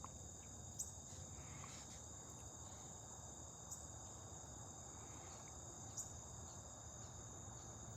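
Faint, steady chorus of insects trilling in several high, unbroken tones, with a few brief high chirps now and then.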